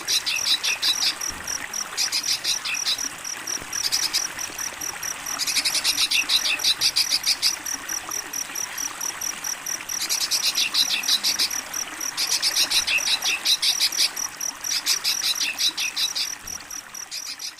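Crickets chirping in a steady, even pulse, with repeated bursts of rapid, buzzy trilling every second or two, over a soft hiss of running water.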